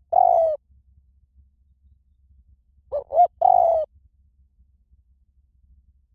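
Spotted dove cooing. A call ends right at the start, and a full call follows about three seconds in: two short notes, then a longer coo.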